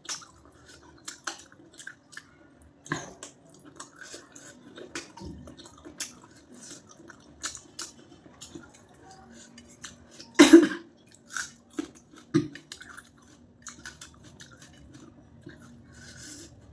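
Close-up eating sounds: a person chewing a meal of goat-head curry and rice, with scattered sharp clicks against a plate and one louder clatter about ten and a half seconds in.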